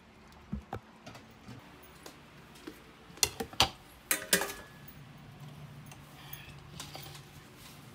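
A metal plate being picked up and handled: a few light clicks, then a quick cluster of sharp knocks and clatter about three to four seconds in. After that, a low steady hum sets in.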